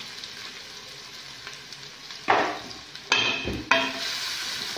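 Chopped onions sizzling in hot oil in a large aluminium pan. About halfway through come three loud scrapes of a flat spatula against the metal as stirring begins.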